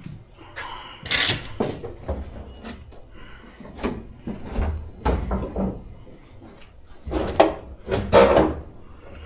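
Car body parts being handled in a garage: irregular knocks, clunks and scrapes, with louder clunks about a second in and twice near the end.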